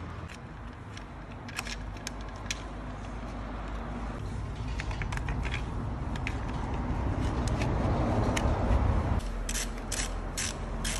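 Metal clicks and rattles from an engine's timing chain and guides being handled and fitted, then a ratchet wrench clicking in quick strokes near the end as a bolt is turned.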